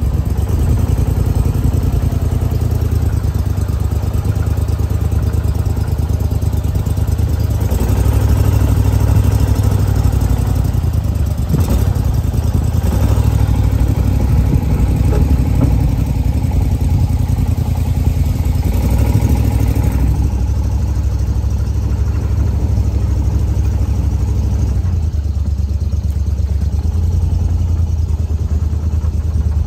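Go Devil boat's surface-drive mud motor running steadily under way, its engine speed swelling and easing a little.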